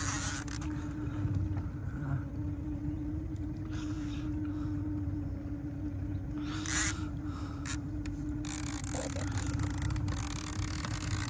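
Boat motor running with a steady hum over a low rumble, with a few short hissy bursts.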